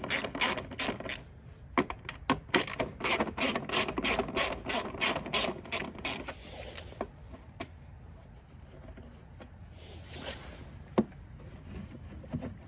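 Hand socket ratchet clicking in quick runs as 10 mm bolts holding a snowblower's gas tank are backed out. The clicking stops about halfway through, leaving a few scattered clicks and knocks.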